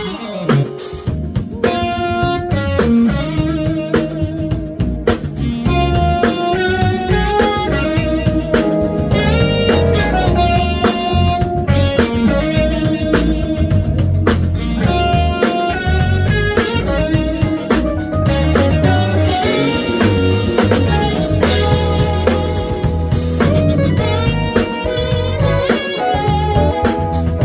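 Live instrumental smooth-jazz band of saxophone, keyboards, electric guitar, bass and drum kit playing, with a lead line of quick melodic runs over a steady drum-kit and bass groove.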